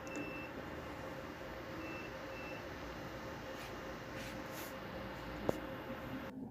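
Digital multimeter's continuity beeper sounding as the probes touch transistor legs on a home theatre amplifier board: one beep at the start and two short beeps about two seconds in, with a click near the end. The beeping marks a short across the legs, the sign of the burnt transistors.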